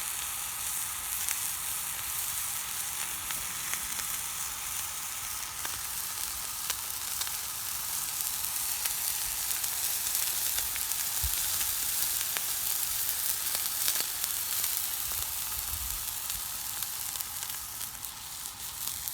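Spencer steaks (dry-aged ribeye) searing on a hot flat-top griddle: a steady sizzle with occasional faint pops, the steaks nearly done.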